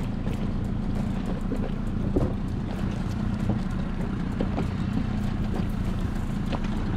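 Steady low drone of a small boat at sea with wind buffeting the microphone, and a few faint clicks over it.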